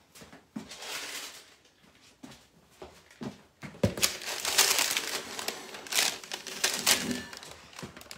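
Paper crinkling and rustling, with a few knocks, as a cake on a plate lined with paper strips is handled on the counter. A thump comes about four seconds in, followed by the loudest rustling.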